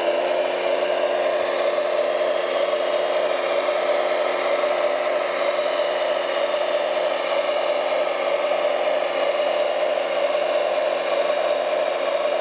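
Radio-controlled construction machine running at a steady pitch, a hum with several even tones that holds unchanged throughout.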